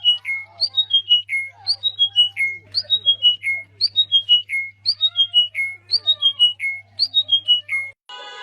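A bird singing the same short phrase over and over, about once a second: a quick run of clear notes stepping down in pitch. Fainter lower calls and a steady low hum lie underneath. Music starts just before the end.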